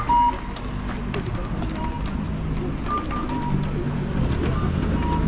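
Busy outdoor market ambience: a vehicle engine running low and steady, with short high beeps scattered through, the loudest a brief beep just after the start, and faint voices.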